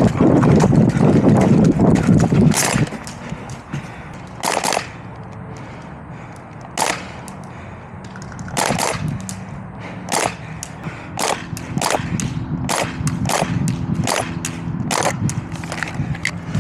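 Airsoft guns firing shots: a few single shots a couple of seconds apart, then quicker strings of shots in the second half. The first couple of seconds hold a loud muffled rumble close to the microphone.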